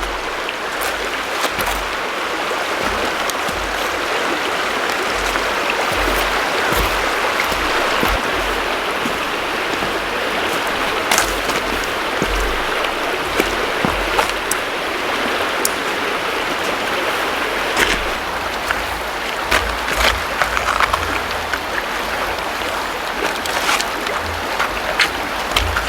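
River water rushing steadily over a stony bed, with scattered sharp clicks and low rumbling bumps over it.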